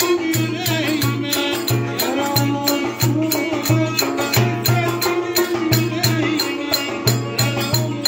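Turkish davul (large double-headed bass drum) beaten in a steady, lively folk dance rhythm: low booming strokes from the heavy beater, about two to three a second, with sharp high clicks from the thin stick between them. A melody instrument plays a wavering folk tune over the drum.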